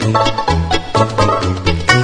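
Background music: an upbeat tune with a bouncing bass line and plucked string notes.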